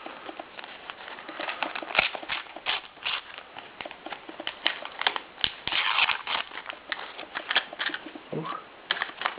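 Crinkling and rustling of a sticker packet being torn open and its stickers handled, a steady run of quick crackles and clicks with a longer rustle about six seconds in.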